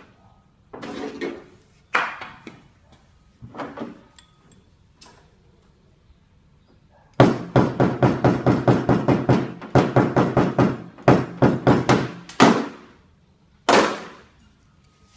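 Knocking on a car body panel during paintless dent repair: a few scattered knocks and scrapes, then a fast run of sharp knocks, about five a second for some five seconds with two short breaks, and one last knock near the end.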